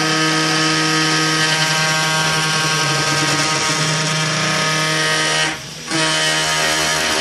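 Homebuilt CNC machine's spindle running with a steady high whine while milling aluminum. The sound drops away for a moment about five and a half seconds in, then resumes.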